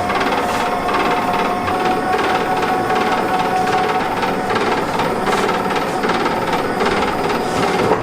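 Repeated sharp knocks, about two to three a second, over steady kitchen noise with a faint held tone.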